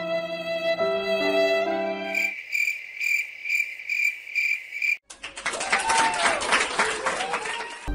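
Violin music stops about two seconds in and gives way to a cricket chirping, about two chirps a second: the stock 'crickets' sound effect for an awkward silence. About five seconds in it cuts to a louder, noisy stretch with short wavering tones.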